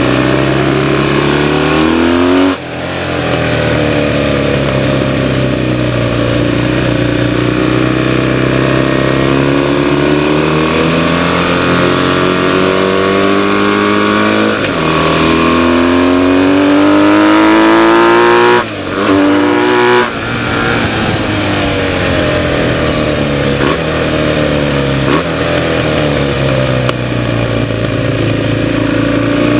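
A BMW flat-twin racing motorcycle engine, heard from onboard at full race pace. It revs up and drops back over and over as it accelerates out of corners and shifts gears, and briefly goes quiet a few times as the throttle is shut, over a steady rush of wind.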